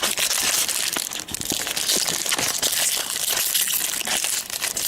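Wrapper of a trading-card pack crinkling steadily as the pack is handled and opened.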